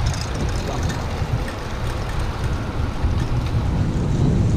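Wind rushing over an action camera's microphone while riding a bicycle: a steady low rumble.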